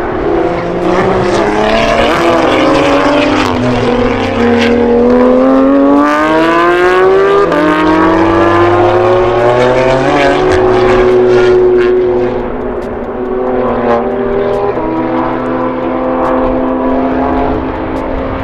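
Time-attack race car engines at full throttle on the circuit, the pitch climbing as they accelerate and dropping back at gear changes, then holding steady.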